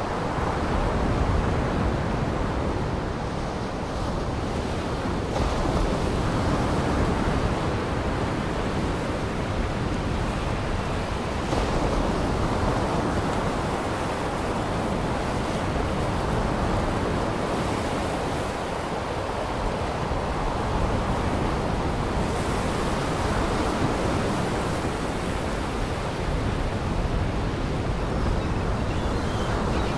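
Surf: waves breaking and washing onto a shore in a steady rush, with wind, swelling and easing every few seconds.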